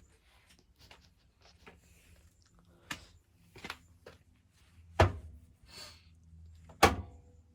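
A few light clicks and knocks, four of them louder, over a faint low hum: handling noise of things being moved and touched.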